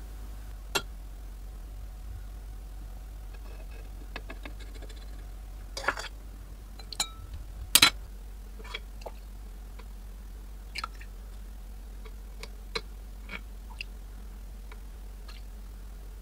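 Steel ladle clinking and scraping against a metal pressure-cooker pot and a steel glass while oil is skimmed off a simmered curry: scattered light clinks, the loudest about six and eight seconds in, over a low steady hum.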